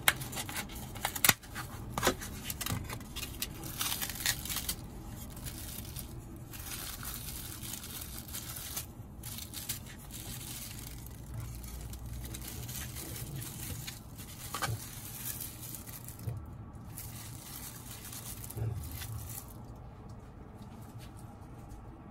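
Thin plastic film being torn open and peeled off a foam natto tray, crinkling and crackling, with a few sharp snaps in the first couple of seconds. The crackle thins out near the end.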